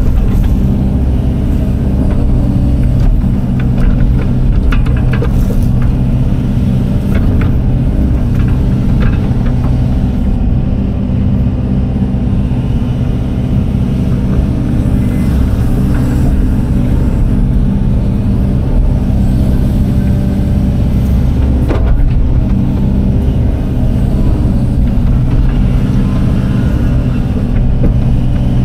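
Case tracked excavator's diesel engine running steadily under load as it digs, with scattered clicks and knocks of the bucket working the soil, one sharper knock about three-quarters of the way through.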